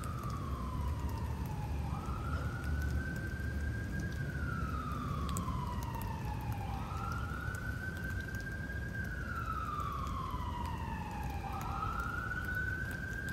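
Emergency vehicle siren in a slow wail: three times it rises quickly, then falls slowly, about every four and a half seconds. A steady low rumble sits underneath.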